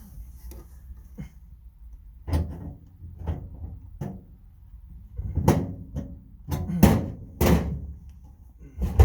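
Metal clunks and bangs from a steel tool box's drawers and drawer rails being worked on, with several loud knocks in the second half.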